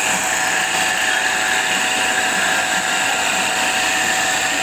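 Grinding machine running with its abrasive wheel grinding a circular metal cutter blade: a steady, high-pitched whine with hiss.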